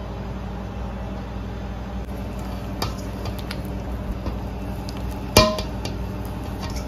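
Hands kneading soft dough in a stainless steel mixing bowl, with small scattered clicks and squishes. About five and a half seconds in comes one louder knock with a short ring. A steady low hum runs underneath.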